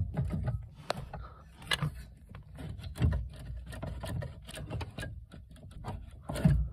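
Metal pedal-box parts of a Ford Escort Mk3 being worked by hand as the pedal pivot bar is pulled through: small clicks, knocks and rattles, with heavier thumps about three seconds in and near the end.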